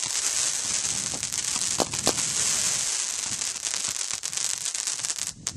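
A Roman candle firework burning with a steady hiss and dense crackle, with a couple of sharper pops about two seconds in; the hiss cuts off shortly before the end.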